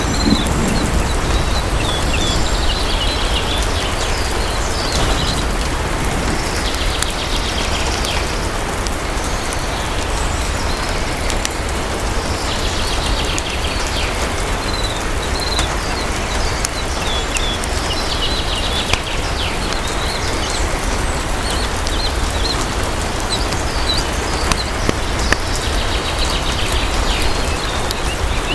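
Steady heavy rain with short high chirping trills every few seconds and scattered faint fireplace crackles.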